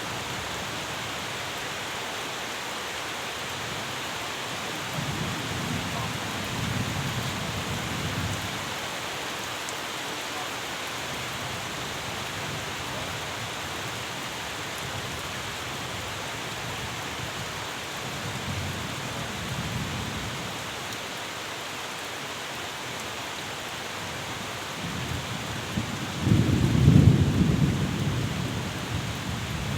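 Steady rain falling, with low rolls of distant thunder swelling up a few times; the loudest comes near the end.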